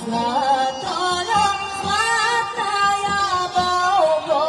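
A woman singing a Rhodope folk song, amplified through a stage PA, over a bagpipe ensemble of kaba gaidas (Rhodope low-pitched bagpipes) and a steady tapan drumbeat.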